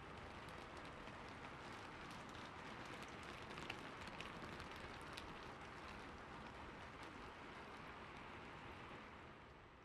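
Steady rain falling, with the ticks of individual drops striking a surface, fading out near the end.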